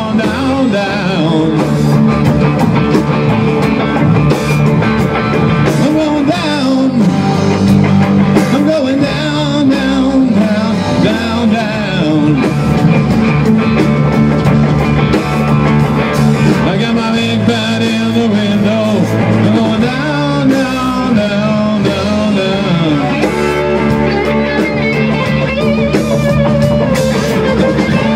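Rock band playing live at full volume: two electric guitars over a drum kit, with guitar lines bending up and down in pitch.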